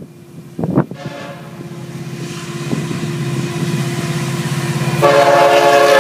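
Freight diesel locomotive's air horn blowing one long continuous blast as the train approaches the road crossing, growing steadily louder and much louder about five seconds in as the lead locomotive draws close. A few gusts of wind hit the microphone in the first second.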